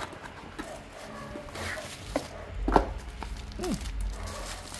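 Cardboard box and plastic bubble-wrap packaging handled by hand as the part is pulled out: rustling with scattered small clicks and knocks, the loudest about three seconds in.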